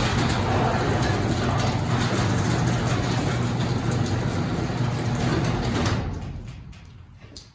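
Garage door opener running the door along its track, a steady motor hum with the rattle of the door and rollers, its roller bearings freshly coated with dry PTFE lube. About six seconds in the opener stops and the sound dies away.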